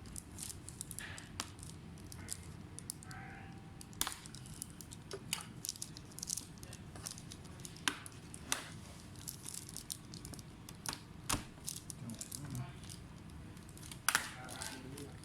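Irregular small clicks, taps and light scrapes of hands handling laptop parts and tools, over a low steady hum.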